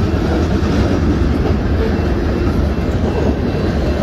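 Freight train of centerbeam flatcars loaded with lumber rolling past: a steady rumble of wheels on rail.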